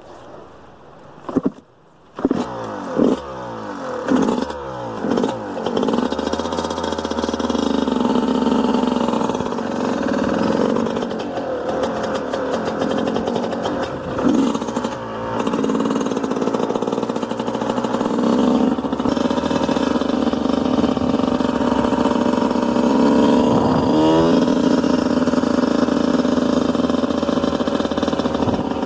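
Small dirt bike engine starting about two seconds in after a couple of knocks, revved several times, then running steadily while the bike is ridden, with the revs rising again near the end.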